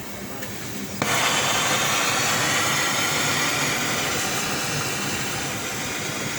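Pressurized gas hissing out of the air conditioner's pipework, starting suddenly about a second in and easing off slowly, over a faint steady hum.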